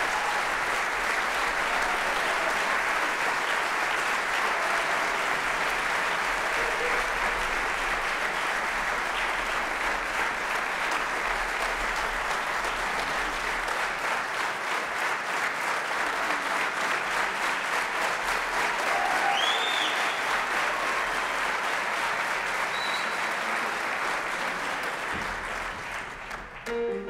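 Concert-hall audience applauding, a long steady ovation, with a brief whistle about twenty seconds in; the clapping dies down near the end.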